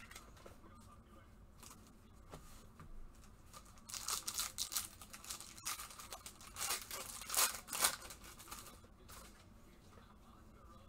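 A foil trading-card pack being torn open and crinkled by gloved hands: a run of quick ripping and crackling from about four seconds in to about eight seconds in.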